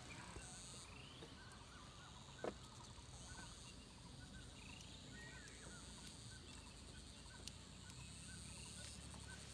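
Quiet outdoor ambience of faint birdsong, with a short rising call repeating every two to three seconds, and a single soft knock about two and a half seconds in.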